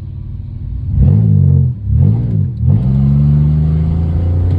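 Pontiac engine with its catalytic converters removed, idling and then revved: two quick blips that rise and fall, then a longer rev held for about two seconds before dropping back toward idle. The engine is not yet fully warm.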